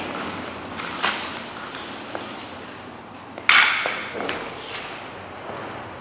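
Hand tools being handled and set down on a hard floor: two sharp clatters, about a second in and louder about three and a half seconds in, with a few lighter clicks between.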